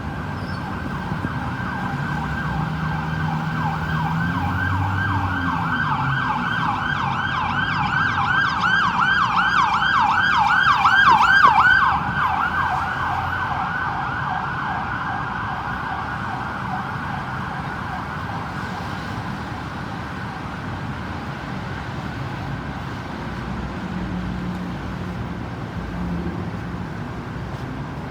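Ambulance siren in a fast yelp, about four rising-and-falling sweeps a second, growing louder to a peak about eleven seconds in, then dropping away and fading as the vehicle passes. Low road-traffic rumble underneath.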